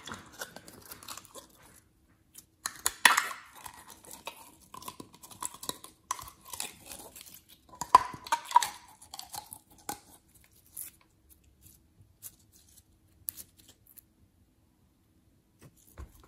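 Clear purple slime squeezed out of a plastic tube and worked by hand, making sticky crackling and squelching sounds with a few short squeaky notes about halfway through. After about ten seconds it goes quieter, with only scattered faint sticky clicks.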